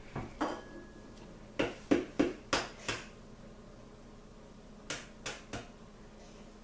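An egg knocked against the rim of a mixing bowl to crack it: about ten sharp taps in three bunches, with pauses between.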